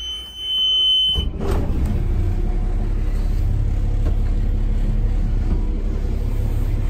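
Helm warning buzzer sounding a steady high tone for about a second, cut off as the MerCruiser 4.2-litre 230 hp diesel inboard starts. The diesel then idles steadily.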